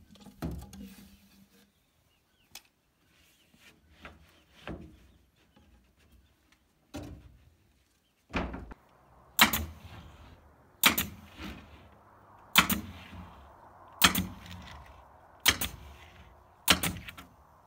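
Pneumatic nail gun firing nails through a plywood roof panel: about eight sharp shots, roughly a second and a half apart, starting about halfway through. Before them come a few lighter knocks of boards being handled.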